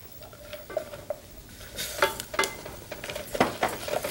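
A wooden spoon stirring slivered almonds and whole spices in ghee in a heavy pan, with scattered knocks and scrapes against the pan that come thicker from about two seconds in.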